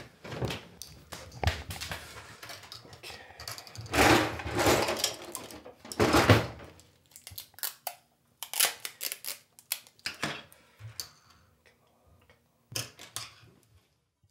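Handling noises: rustling and a few louder knocks in the first half, then scattered small clicks and taps as a pair of broken eyeglasses is handled.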